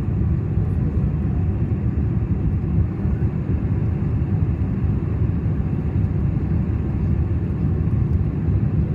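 Steady low rumble of a jet airliner in flight, heard from inside the cabin at a window seat over the wing; an even roar with no distinct tones or changes.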